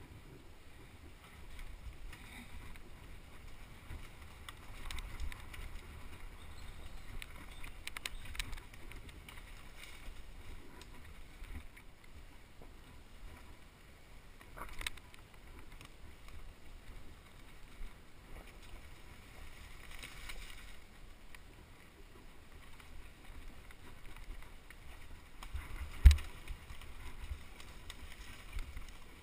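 Enduro motorcycle riding over a rough forest trail, heard muffled through the camera's case as a low, continuous rumble with scattered knocks from the bumps, and one hard knock near the end.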